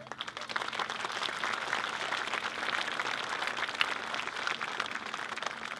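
Large crowd applauding with many hands clapping at once, a steady dense patter that starts just as the band's final chord is cut off.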